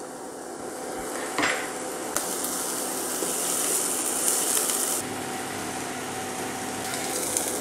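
Chopped vegetables sizzling as they stir-fry on high heat in a nonstick pan, stirred with a silicone spatula against the pan; the sizzle grows louder about two seconds in, with a single knock about a second and a half in.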